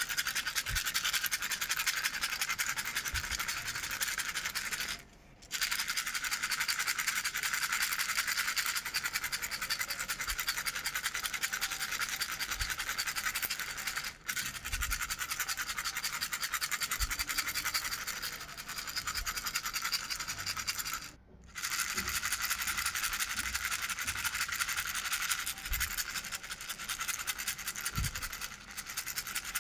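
Owl-shaped baby rattle shaken fast and without letup, a dense, bright rattling that stops briefly three times.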